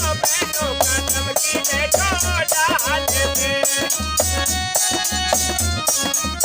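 Instrumental interlude of an Indian folk song: a wavering, pitch-bending melodic lead over a steady shaker rhythm and regular deep drum beats.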